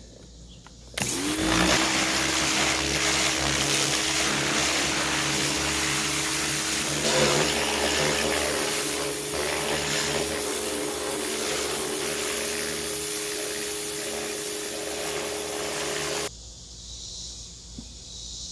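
A high-speed electric motor, vacuum or blower type, spins up about a second in and then runs steadily with a rushing air sound. It cuts off suddenly near the end.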